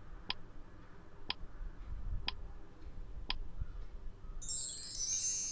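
Quiz countdown-timer sound effect ticking four times, once a second, then a high-pitched sound effect of about a second and a half as the count reaches zero, marking time up.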